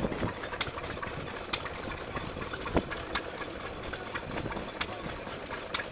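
Vintage single-cylinder stationary engine running slowly while driving a small water pump, with a sharp exhaust bang about once a second at uneven intervals over a steady low mechanical clatter.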